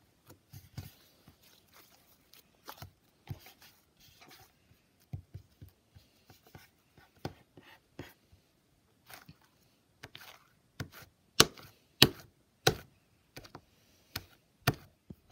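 Slime pressed and poked with fingertips against a tabletop, giving irregular crunchy clicks and pops. They come every half second or so, and the loudest few fall about two-thirds of the way through.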